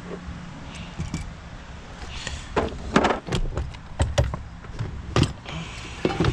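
Metal hand tools clinking and clanking as they are handled: a scattered series of sharp metallic knocks, loudest around the middle, over a low steady hum.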